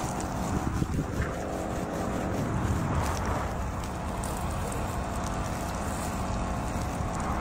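A steady low rumble with wind noise on the microphone.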